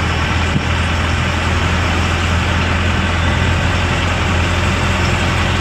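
A pickup truck's engine and road noise, heard from inside the cab while driving at a steady speed: a steady low engine drone with an even hiss over it.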